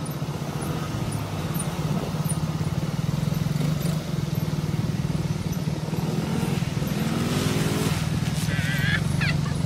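ATV engines running steadily at low riding speed, a constant low hum.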